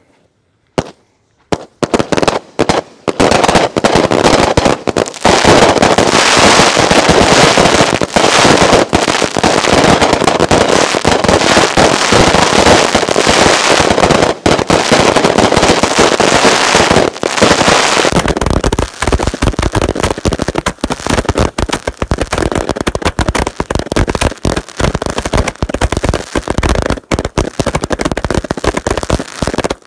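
Twenty-four 200-gram consumer firework cakes firing at once. After one pop about a second in comes a dense, almost unbroken barrage of launches and bursting, crackling shells. After about eighteen seconds it thins to a rapid string of separate bangs.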